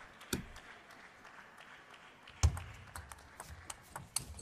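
Table tennis ball clicking off rackets and the table during a fast rally, with a louder knock about two and a half seconds in and a quick, irregular run of clicks near the end.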